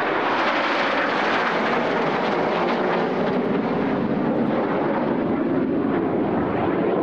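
A formation of BAE Hawk T1 jets passing overhead: steady rushing jet noise from their Rolls-Royce Adour turbofans.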